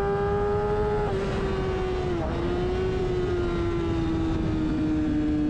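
Motorcycle engine running at high revs, a steady high-pitched tone that slowly falls in pitch, with a short step down about a second in and a brief dip and recovery about two seconds in.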